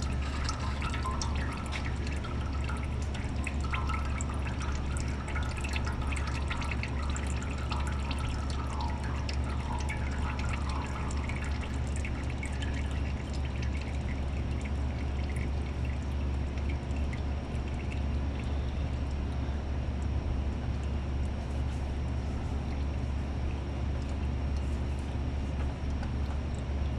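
Liquid dripping and trickling steadily, with many small drips and ticks over a constant low hum.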